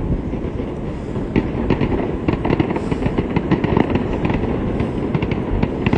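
Fireworks going off in rapid succession: many sharp bangs and crackles over a steady low rumble, the crackling growing denser about a second and a half in.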